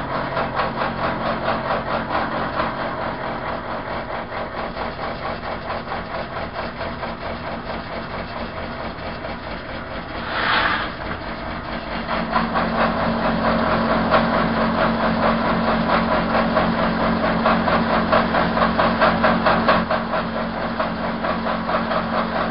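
Manual milling machine cutting a flute along a rifle barrel: the motor runs steadily under the loud, rapid, even pulsing of the cutter. There is a brief hiss about ten seconds in, and after it the cut runs louder.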